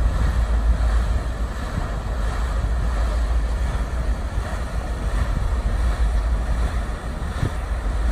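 The Natchez sternwheeler's red paddle wheel turning and churning the river water, a steady splashing wash, with heavy wind rumble on the microphone.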